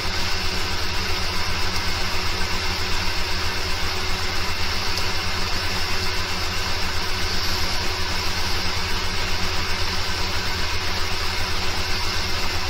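A steady low mechanical drone with a fast, even pulse, unchanging throughout.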